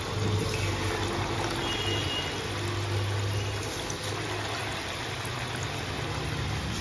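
Onion and gram-flour pakoras deep-frying in hot oil in a steel kadhai: a steady sizzle and bubbling as batter is dropped into the oil, over a low steady hum.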